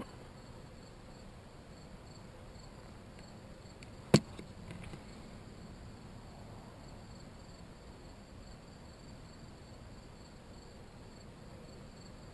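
Insects chirping steadily and faintly in the background, with one sharp click about four seconds in.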